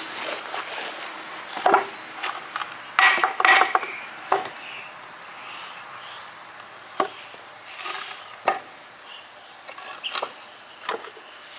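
Wooden boards knocking and clattering as they are handled, with a quick run of knocks about three seconds in and single sharp knocks scattered after.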